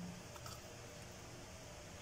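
Quiet room tone with a faint soft click about half a second in.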